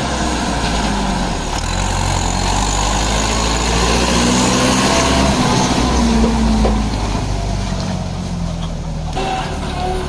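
Mahindra tractor's diesel engine running as it pulls a trailer loaded with soil past close by, loudest about midway through as it goes past.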